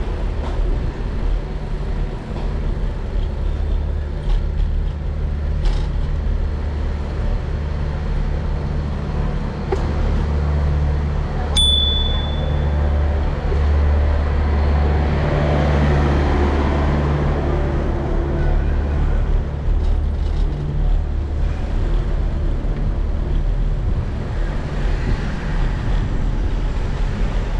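Wind rumble on an action camera's microphone and tyre and street noise from a bicycle ride, with a single bicycle bell ding about twelve seconds in. Engine noise swells midway as the bike passes a delivery truck.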